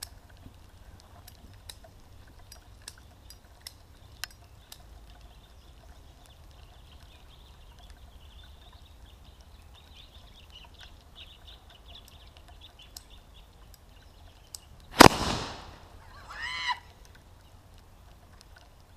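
A homemade explosive goes off with a single loud, sharp bang about fifteen seconds in. A short high-pitched cry follows a second and a half later. Before the bang there is only faint rustling and a few small clicks.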